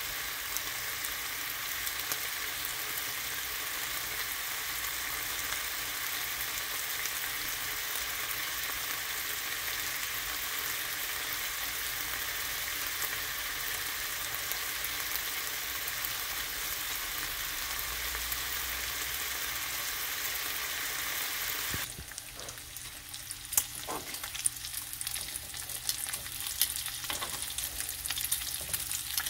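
Strips of bacon sizzling and crackling steadily in a nonstick frying pan, early in the cooking while the bacon is still raw. About three-quarters of the way through the sizzle suddenly turns quieter, and sharp clicks of metal tongs against the pan follow as a strip is turned.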